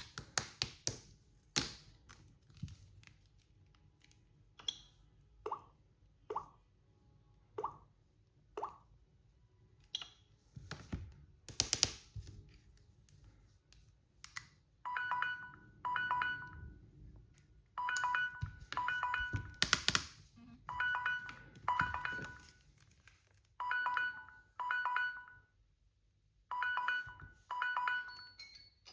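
Samsung Galaxy phone sounding its alert tone. First come scattered taps and short blips, then about halfway in a clear electronic beep starts, in pairs a second apart, the pairs repeating about every three seconds.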